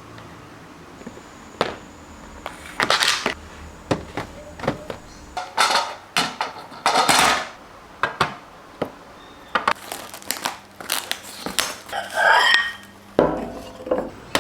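Kitchenware being handled: dishes, utensils and containers clink, clatter and are set down in a string of separate knocks and short scrapes, with a brief squeak about twelve seconds in.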